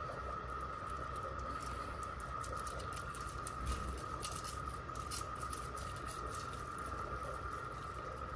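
Faint light clicks and scratches from a black-and-white tegu's claws on a tile floor as it shifts under a restraining hand. Beneath them run a steady low hum and a constant high whine.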